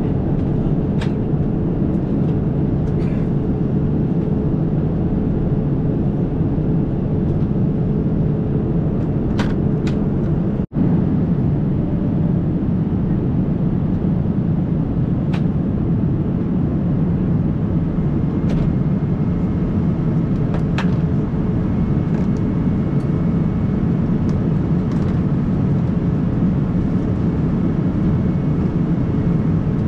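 Steady cabin noise of a jet airliner in flight: engine and airflow noise heard from a passenger seat, with a low hum. The sound cuts out for a split second about ten seconds in.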